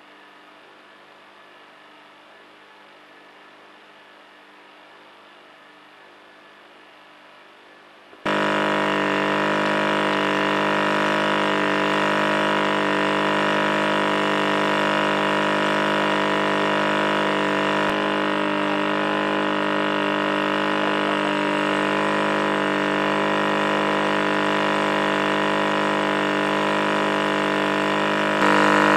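A faint steady hum, then about eight seconds in a loud, steady engine drone at constant speed sets in abruptly and runs on unchanged.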